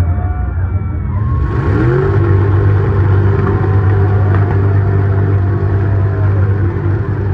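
Mega truck's big engine revving hard, its pitch rising and falling, with a rush of noise joining about a second in.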